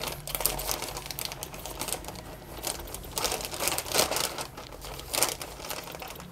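Scissors snipping through a plastic courier mailer bag: a string of irregular, crisp snips, with the plastic crinkling as it is handled.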